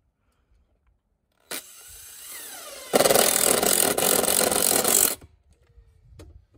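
Cordless impact driver driving a screw through the back of a metal disconnect box into the wall: about a second and a half in it starts spinning with a falling whine, then for about two seconds it hammers much louder as the screw draws tight, and it stops suddenly.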